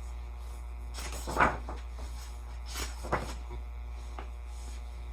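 Pages of a picture book being handled and turned: two short rustling swishes, about a second in and about three seconds in, the first the louder, over a steady low electrical hum.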